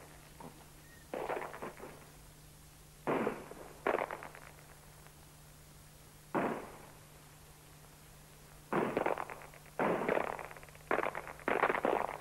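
Scattered gunshots: about eight irregular shots, some in quick pairs, each dying away in an echo, some with a crackling, volley-like edge.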